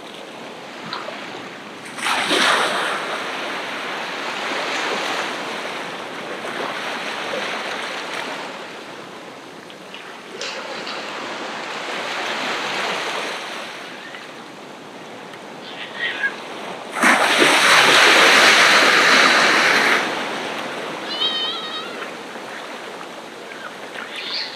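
Ocean surf washing onto a beach, rising and falling, with a wave rushing in about two seconds in and the loudest wash for a few seconds late on. A few short high calls sound near the end.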